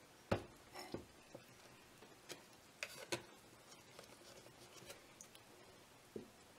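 A few faint, scattered clicks and soft taps as a metal measuring cup of liquid cream is tipped and poured into a pot of soup.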